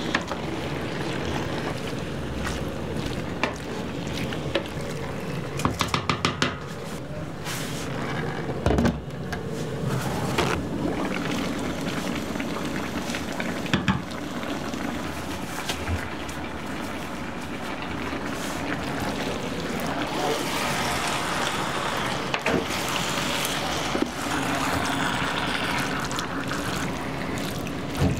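Diced meat simmering and steaming in its juices in a large electric pan, stirred with a wooden spoon, with scattered knocks and clinks of the spoon and glass lids and a quick run of clicks about six seconds in.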